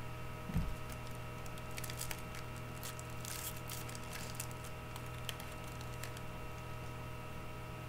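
Trading cards being handled and flipped through: scattered light clicks and rustles, bunched in the middle, with a low thump about half a second in, over a steady electrical hum.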